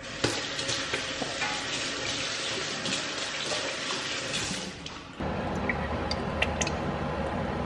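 Kitchen tap running, with water splashing into a sink, for about five seconds. Then it stops and a lower, steady hum with a few light clicks follows.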